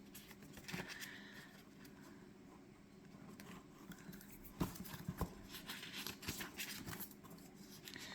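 Pages of a paper journal being handled and turned: soft rustles with scattered light taps and clicks, the sharpest a little past the middle.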